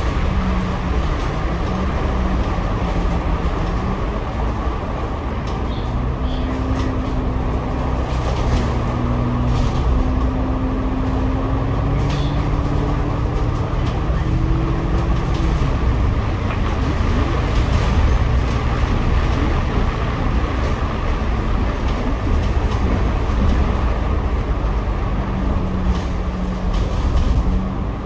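Double-decker bus engine and drivetrain heard from the upper deck, a steady rumble with a low whine whose pitch rises and falls as the bus accelerates and slows.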